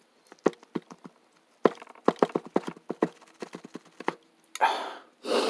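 Close-up mouth sounds of someone chewing a bite of steak: a run of quick wet clicks and smacks, then two audible breaths through the nose near the end.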